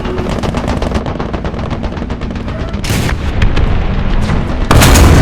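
Engine running with rapid popping and crackling from the exhaust, misfire pops, building to a loud blast of backfire near the end.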